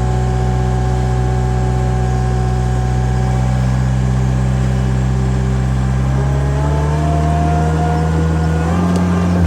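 An engine running steadily and loudly, its pitch shifting a little over the last few seconds.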